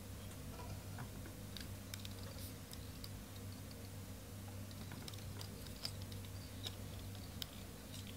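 Faint scattered clicks and ticks from fingers handling small metal lure parts (thin steel wire, a coiled steel spring, a split ring) over a low steady hum.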